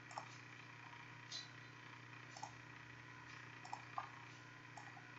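Faint computer mouse clicks, about half a dozen at irregular intervals, over a low steady hum.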